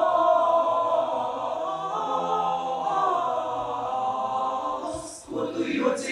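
Mixed male and female choir singing a cappella in long held chords. About five seconds in it breaks off briefly and moves into quick, clipped rhythmic syllables.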